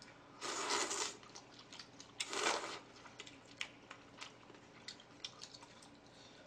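Two loud slurps of noodles and broth from a plate held to the mouth, about two seconds apart, followed by a run of small clicks and smacks of eating and chopsticks.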